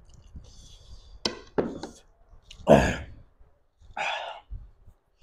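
Eating and breath sounds from a man eating curry with his hands: two short clicks just over a second in, a loud sigh-like breath about three seconds in, and a shorter breathy exhale about a second later.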